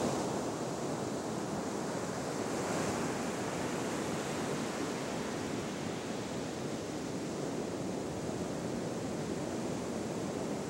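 Surf breaking and washing up a sandy beach: a steady, continuous rush of waves.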